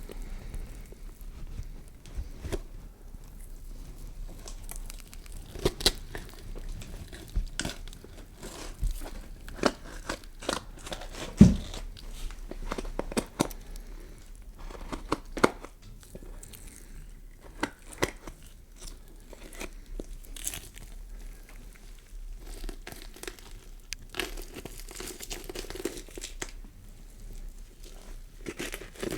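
Peeling-skin horror sound effect: slow tearing and crinkling with irregular crackles and sharp pops, the loudest snap about eleven seconds in.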